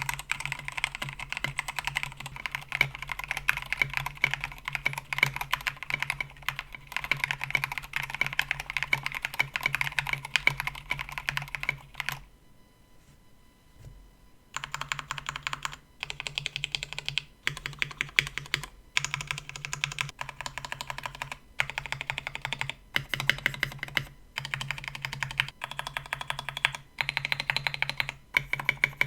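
Typing on a mechanical keyboard fitted with Cherry MX Black Hyperglide linear switches on a polycarbonate plate, in a KBD67 Lite case. The typing is fast and continuous at first, stops for about two seconds around the middle, then comes back in short bursts with brief pauses between them.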